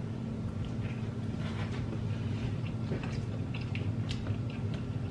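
Small clicks and crackles of cooked seafood shells being pulled apart by hand, with soft chewing, over a steady low hum.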